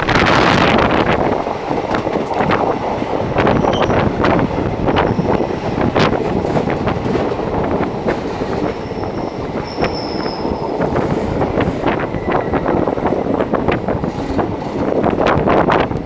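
Indian Railways express coaches rushing past at speed close alongside, heard from the open doorway of another moving train. A loud, steady rush of wheels and air, with frequent sharp clicks and clatter from the wheels over the rails.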